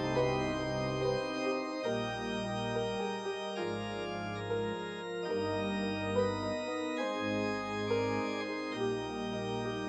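Organ playing slow, sustained chords, the bass note changing about every second and a half.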